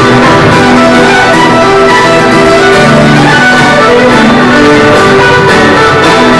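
Live band playing an instrumental passage on fiddle, guitar and keyboard, with long held notes and no singing.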